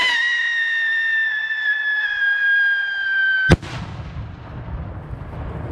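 An 8 oz whistle rocket climbing with a steady high whistle that sinks slightly in pitch, cut off about three and a half seconds in by one sharp bang as the rocket bursts.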